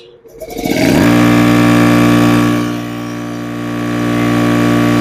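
Craftsman 25-gallon upright air compressor switched on with a click: its motor spins up, rising in pitch for about a second, then runs steadily. It keeps running this time instead of tripping the breaker.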